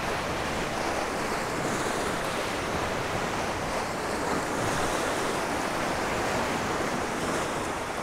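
Wind-driven waves on a freshwater lake breaking and washing over shoreline rocks, a steady rushing wash, with wind buffeting the microphone.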